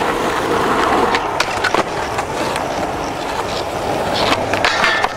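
Skateboard wheels rolling over pavement: a steady rolling noise with a few light clicks.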